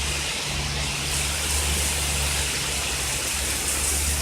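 Torrential rain pouring down in a thunderstorm, a steady rushing hiss, with a steady low rumble underneath.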